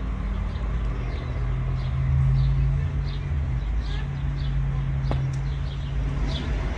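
A small bird chirping over and over, short falling chirps about twice a second, over a steady low hum. A single sharp click about five seconds in.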